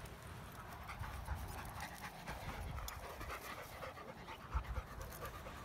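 A dog panting, in a run of short quick breaths, with a couple of low thumps about four and a half seconds in.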